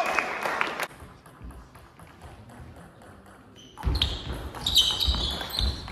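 Table tennis rally starting about four seconds in: the ball clicking off bats and table, with high squeaks from shoes on the sports hall floor.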